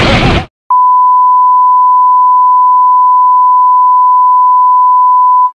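Loud explosion noise that cuts off abruptly about half a second in. After a brief gap comes a steady, single-pitched test-tone beep, the kind played with television colour bars, held unchanged for nearly five seconds before stopping suddenly.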